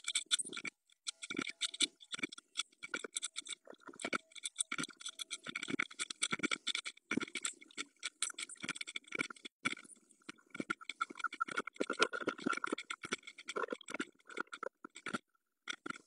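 Blue tit scratching and rustling inside a wooden nest box, shuffling the moss nest material, with many quick, irregular scratches and taps.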